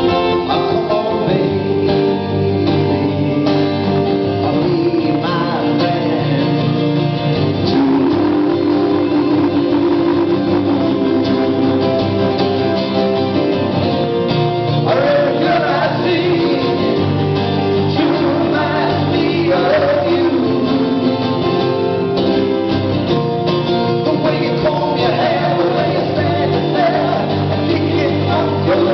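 Live acoustic rock music: guitar playing steadily, with a man's voice singing.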